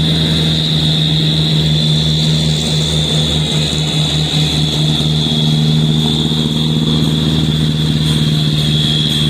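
Heavy expedition truck's diesel engine pulling up a hill at steady revs: a loud, steady low drone, with a steady high-pitched whine above it.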